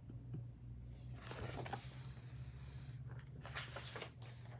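Soft rustling and scraping of a hardcover picture book being handled and turned around, twice: about a second in and again near the end, over a steady low hum in a quiet room.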